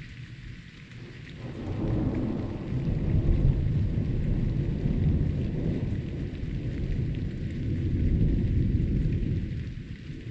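Rolling thunder rumbling deep and long, building about a second and a half in and fading away near the end, over steady rain hiss.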